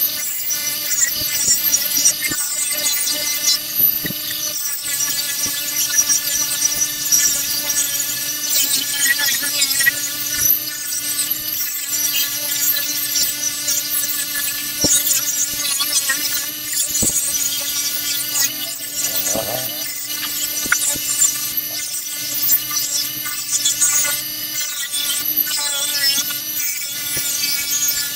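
Bench grinder running steadily with a constant motor hum while metal exhaust tube is ground against its wheel, a continuous shrill grinding hiss that rises and falls as the pipe is pressed on and moved.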